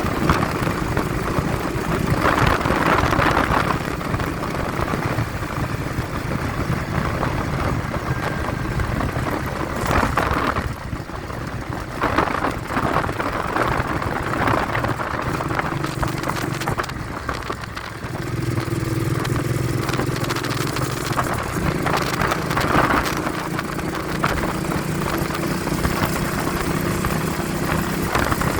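Vehicle engine running on the move, its pitch stepping up and down a few times and creeping higher near the end. Wind buffets the phone's microphone in gusts throughout.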